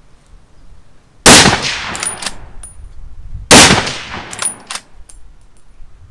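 Two rifle shots about two seconds apart, each a loud crack trailing off in echo, followed by a few sharp metallic clicks.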